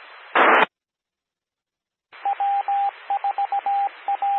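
A two-metre amateur radio repeater. A short burst of static, the squelch tail, cuts to silence. About two seconds in, the W4AP repeater keys up with a hiss and starts sending its callsign identification in Morse code as a steady beeping tone.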